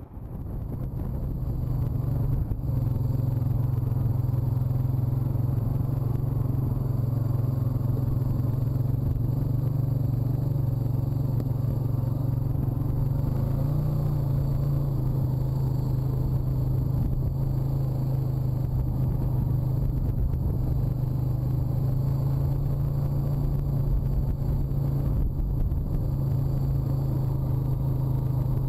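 Honda ATV engine running steadily as the quad rides along, a constant low drone that swells up over the first couple of seconds and then holds even.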